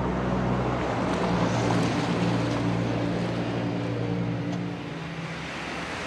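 Car engines running as cars drive through traffic, a steady engine drone over road noise that drops slightly about five seconds in.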